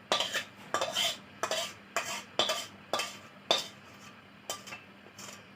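Spoon scraping and knocking inside a cooking pot of thick cooked lentil seka, about two strokes a second, stopping near the end.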